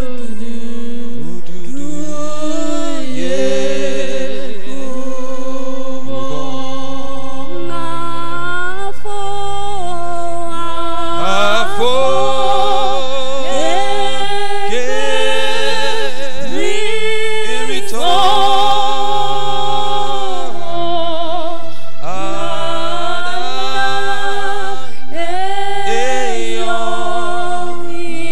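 A man singing a slow worship song into a microphone, long wavering held notes over steady held accompaniment notes.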